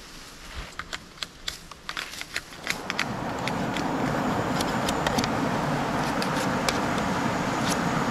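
Sharp cracks and crackles as a leafy bamboo stalk is snapped and stripped. About three seconds in, a steady rushing noise of a river takes over, with occasional light clicks of a machete blade working along a bamboo pole.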